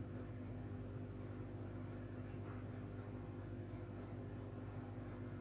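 Pencil scratching on paper in short, quick strokes, about three a second, drawing the uprights of a fence. The strokes are faint, over a steady low electrical hum.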